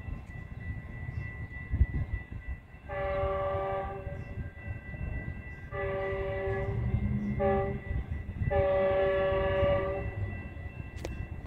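An approaching Metrolink commuter train's locomotive horn sounding four blasts, long, long, short, long, the standard warning for a grade crossing, over the low rumble of the train.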